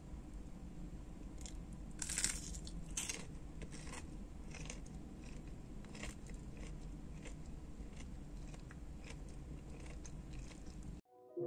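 Crisp fried breadcrumb crust of a chicken nugget stick crunching loudly as it is bitten into, twice about two and three seconds in, followed by quieter chewing crunches.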